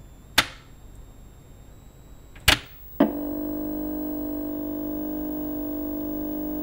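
Three sharp cracking hits, the second and third half a second apart, then a steady droning tone of several held notes that starts right after the third hit and holds unchanged.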